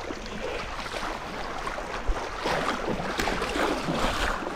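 Small surf washing and splashing in the beach shallows, with a brief low thump of wind on the microphone about two seconds in.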